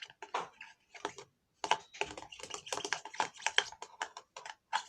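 A rapid, irregular run of light clicks and taps, with a short pause about a second and a half in.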